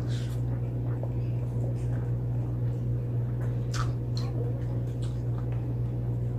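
Close-up eating sounds of a person chewing a mouthful of rice: scattered short wet mouth clicks and smacks, the sharpest a little under four seconds in, over a steady low hum.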